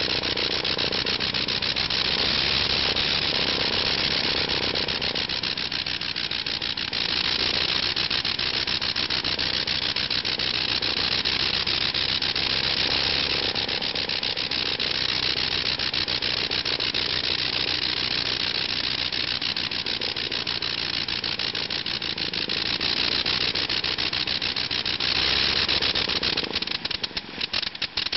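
Le Rhône rotary aircraft engine running steadily on the ground, driving its propeller with a rapid, even beat of firing pulses. Near the end the sound drops away in a few brief dips.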